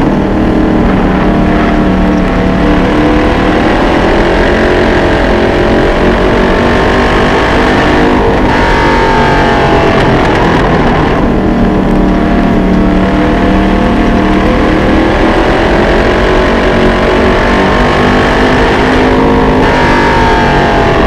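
Vintage late model dirt-track race car's carbureted V8 running hard, heard from on board. The engine note dips and climbs back as the driver lifts for the corners and gets back on the throttle, around the middle and again near the end.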